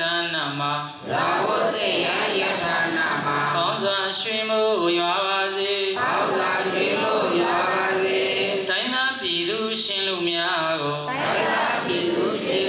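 A monk's voice chanting a verse in a sung, melodic style through a microphone and loudspeakers, with long held notes and pitch glides and short breaths about a second in and near the end.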